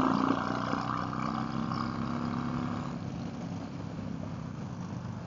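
Harley-Davidson V-twin motorcycle riding at road speed over wind and road noise. The engine note is strong for the first three seconds, then fades, leaving a lower steady rumble and road noise.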